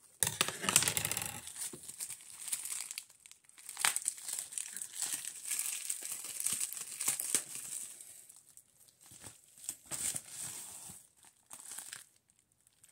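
Plastic bubble mailer crinkling and tearing as it is cut open with scissors and pulled apart, in irregular bursts. The loudest stretch is in the first second or so, and it thins out near the end.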